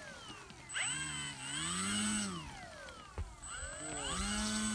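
RC model plane's motor and propeller run up during a pre-flight check: throttled up twice, each time a rising whine that holds for about a second and then falls away, with a steady high tone above it while it runs.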